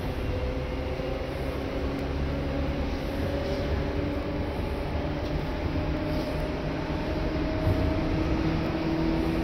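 Seibu 2000 series electric train running, heard inside the car: a steady low rumble of wheels on track under a thin traction-motor whine that slowly rises in pitch as the train gathers speed.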